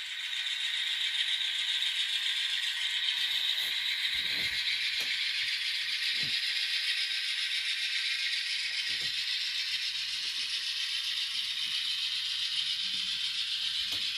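Sound-equipped N scale GE Dash 9-44CW model locomotive running, its LokSound decoder playing the diesel engine sound through the model's tiny speaker. The sound is steady, thin and tinny, with no low end.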